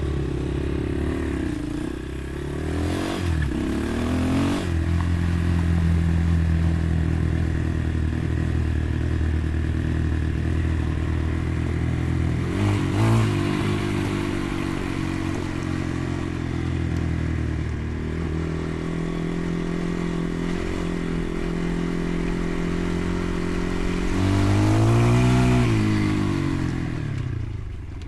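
Motorcycle engine running while riding, its pitch stepping with gear changes a few seconds in and around the middle. Near the end a rev rises and falls, the loudest part.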